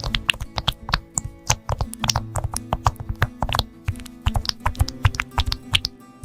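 Fast typing on a computer keyboard: a dense run of sharp key clicks, several a second, over background music.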